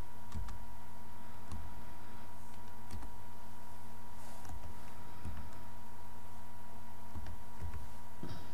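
Computer keyboard being typed on: scattered, irregular key clicks as a name is entered letter by letter, over a steady electrical hum.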